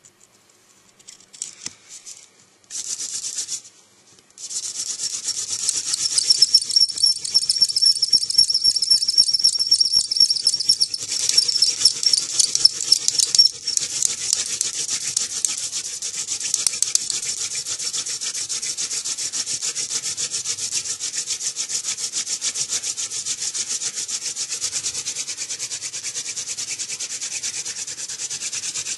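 Hand-drill spindle spun back and forth between the palms, its tip grinding in the socket of a goldenrod gall hearth: a steady, high, hissing friction rub with rapid flutter. It starts a few seconds in, stops briefly, then runs on, with a thin high squeal over roughly the first seven seconds of steady drilling.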